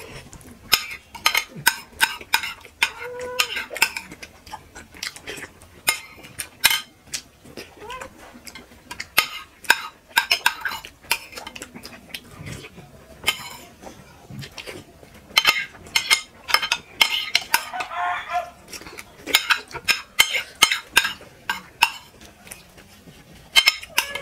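Metal spoons clinking and scraping against ceramic plates as soft khichuri is scooped up, a steady run of sharp clicks with short ringing.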